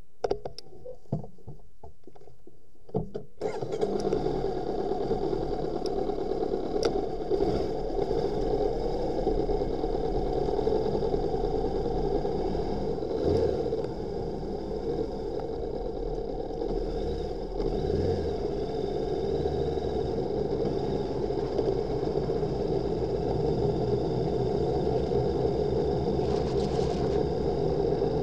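Motorcycle engine that comes in suddenly about three seconds in, after a few clicks and knocks, and then runs steadily.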